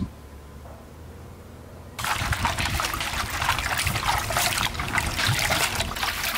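Water splashing and trickling in a stainless steel basin as garlic scapes are swished and washed by hand. It starts suddenly about two seconds in, after a quiet stretch.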